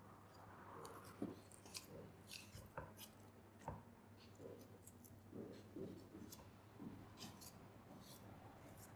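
Kitchen knife slicing and trimming sinew and fat from a raw beef heel muscle on a wooden cutting board: faint, irregular cutting and scraping strokes with a few light knocks of the blade on the board.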